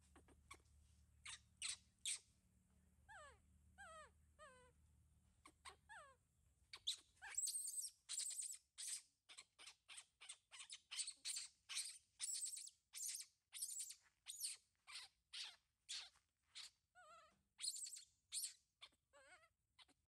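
Baby monkey crying: short wavering whimpering calls at first, then from about seven seconds a fast run of shrill high screams, two or three a second. The crying of a young monkey left to cling alone on a tree, screaming in anger and distress.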